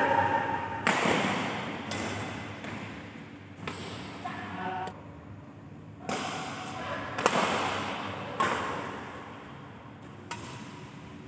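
Badminton racket strings striking a shuttlecock back and forth in a singles rally, about seven sharp hits a second or two apart, each ringing on in the hall's echo.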